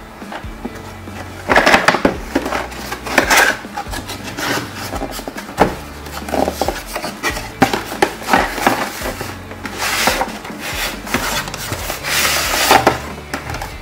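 Cardboard toy box being handled and opened: flaps scraping and rubbing, with irregular rustles as a hand slides inside the box.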